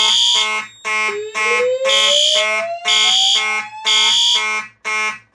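Fire alarm appliances sounding together. A Simplex 2901-9838 mechanical horn pulses rapidly in march-time code. A System Sensor P2W horn gives a code-3 temporal pattern of three half-second blasts and a pause, over a slow-whoop tone from the Notifier DVC voice-evacuation speaker that rises slowly in pitch.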